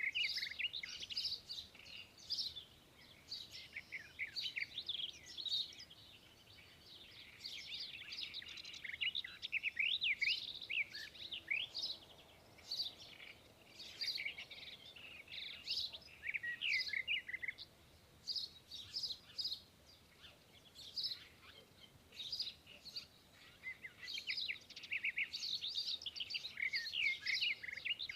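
Many small birds chirping and twittering at once, in quick rising and falling calls that come in clusters with brief lulls.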